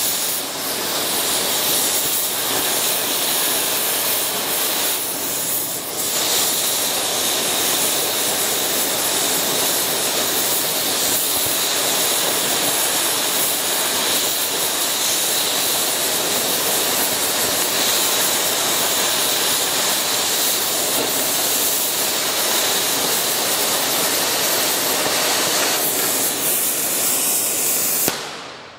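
Oxy-acetylene cutting torch with a washing tip running with the cutting oxygen on: a loud, steady hiss as the jet wash cuts a backing strip off a steel plate. It stops abruptly near the end.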